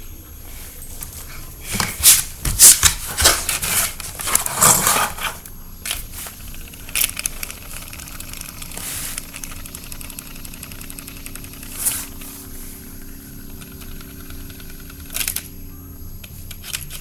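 Handheld fidget spinners being handled and flicked: a burst of clicking and rattling about two seconds in that lasts a few seconds, then a few single clicks spread out, over a faint steady hum.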